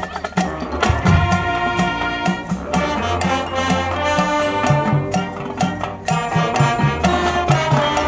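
High school marching band playing: the brass hold chords over a steady drum beat and low bass notes.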